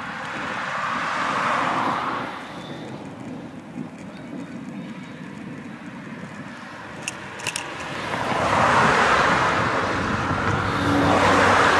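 Cars passing on the road, each one a swell of tyre and engine noise that rises and fades: one near the start, then two louder ones from about eight seconds in. A few sharp clicks come between them.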